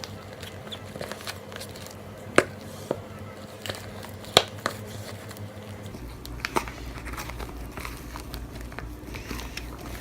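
Sticky fluffy slime being kneaded and stretched by hand, giving scattered sharp clicks and crackling pops as it comes together, with two louder snaps near the middle.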